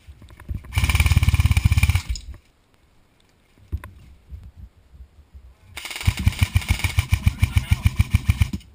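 Airsoft M4 rifle firing two long full-auto bursts of rapid, evenly spaced shots: a shorter one about a second in and a longer one of about three seconds near the end, with a single sharp click between them.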